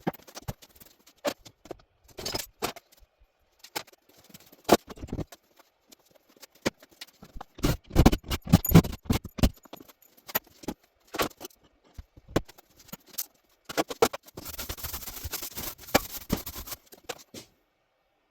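Small metal hardware such as nails, screws and hooks clinking and rattling as it is handled, with scattered knocks and clatters. The loudest knocks come near the middle, and a denser stretch of rattling near the end stops suddenly.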